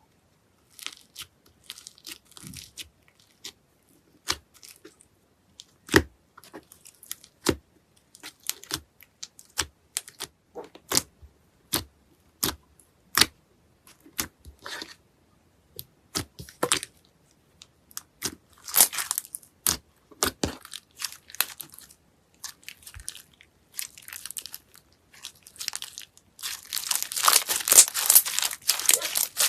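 Slime being worked by hand: scattered sharp pops and crackles, irregular and a second or so apart, building into a dense, loud crackling near the end.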